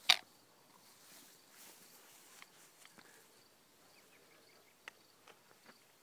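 Outdoor ambience: a sharp knock just after the start, then quiet background with a faint high chirp repeating two or three times a second and a few light clicks.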